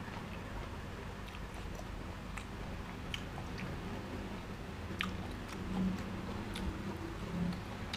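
A person chewing a mouthful of raw beef with wet mouth sounds, and scattered short clicks.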